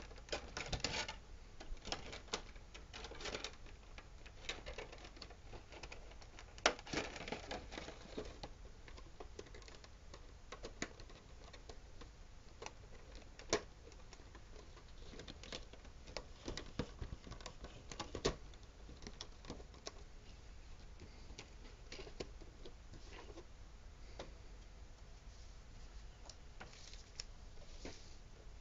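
Irregular light clicks and taps at a desk, thickest in clusters during the first few seconds, then sparser, with a few sharper single ticks.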